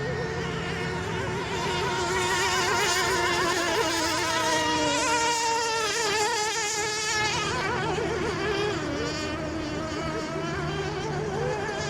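Several radio-controlled racing boats running together, their small high-revving motors buzzing in overlapping pitches that waver up and down as the boats speed and turn.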